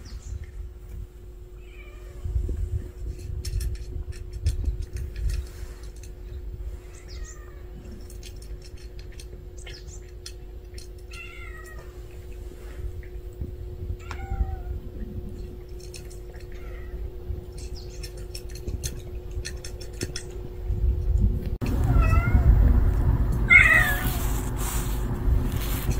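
Street cats meowing: short, falling meows every few seconds, coming louder and closer together near the end. A low rumble and a faint steady hum run underneath.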